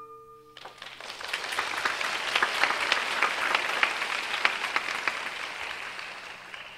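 Audience applauding, rising quickly after a held musical chord cuts off about half a second in, then fading away near the end.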